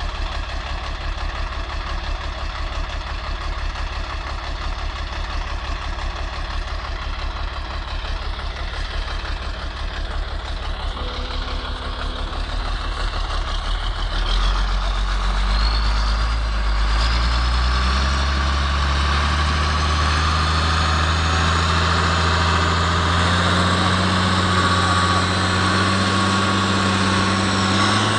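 Vehicle engine running steadily with a regular low throb, then from about halfway it gets louder and its pitch climbs slowly as it works harder.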